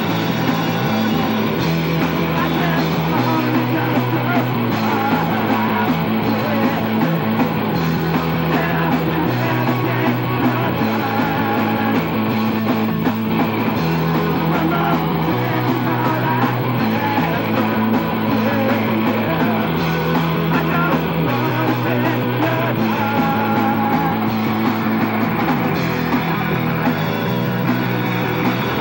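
Rock band playing live: electric guitars and a drum kit, loud and unbroken, with a low bass line stepping to a new note every second or two.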